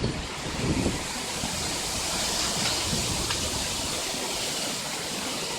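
Storm-force wind rushing steadily through trees, with gusts buffeting the microphone in the first second.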